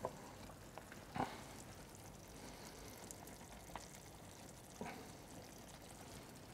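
Faint sizzling and bubbling of chicken in gochujang sauce in a pan over charcoal, with a few small pops, the clearest about a second in and near five seconds.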